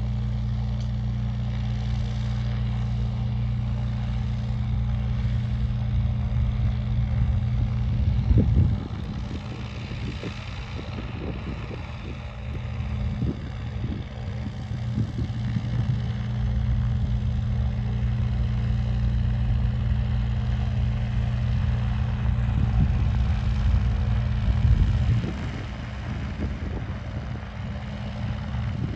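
Steady low engine drone with wind gusting on the microphone. The drone drops away suddenly about nine seconds in, returns, and drops again near the end.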